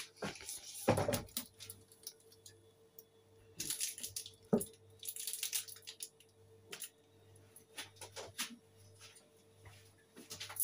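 Scattered light clicks, knocks and brief rustles of handling in a small kitchen, over a faint steady hum.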